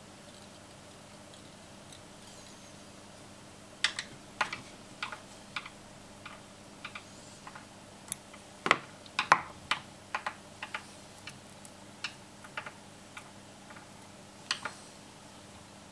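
Irregular small clicks and taps from hands working thread and flash on a jig hook clamped in a fly-tying vise. The first few seconds are quiet, and the clicks are loudest around the middle.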